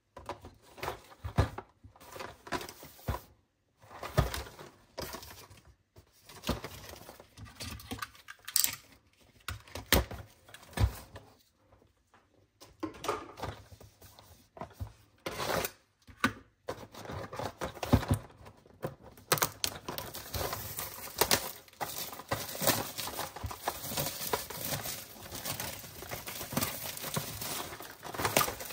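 Plastic shrink-wrap on a cardboard advent calendar box being handled: separate taps and scratches on the wrapped box, then from about two-thirds through, steady crinkling and tearing as the plastic film is pulled off.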